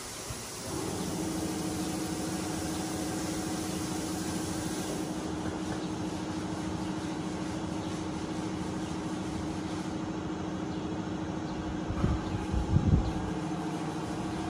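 Plasma cutter running: a steady buzzing hum with air hiss that comes on about a second in and holds even, with its air pressure set high, which the men say is too much and blows out the arc. A couple of louder low knocks come near the end.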